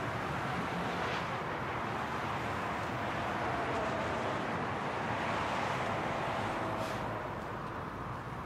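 Steady road-traffic noise: an even rush with no clear rise or fall.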